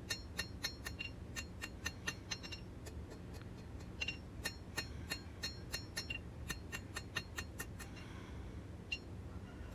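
Quick, light hammer taps on a steel seax blade at the anvil, about four a second, each with a short high metallic ring. The taps thin out near the end.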